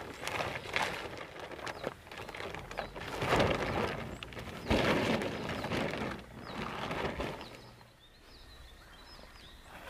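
Nylon dome-tent fabric rustling and flapping in swells as the tent is handled and taken down off its poles, with a sharp knock about halfway through. Small birds chirp faintly, heard more clearly in the quieter last two seconds.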